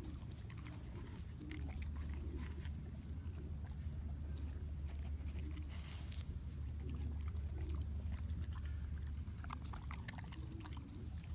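A dog chewing and biting into watermelon: a scatter of short, irregular crunching clicks over a steady low rumble.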